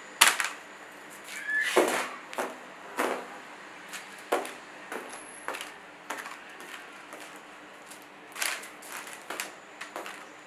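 Irregular sharp slaps and taps as liquid paint is flung from a plastic cup onto a canvas laid on plastic sheeting; the loudest comes right at the start, and there is a brief high squeak early on.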